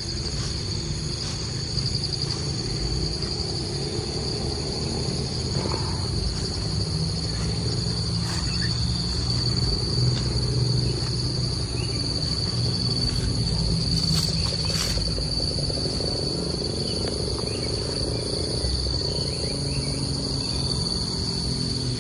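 Insects in the surrounding vegetation keeping up a steady, unbroken high-pitched drone, over a low background hum.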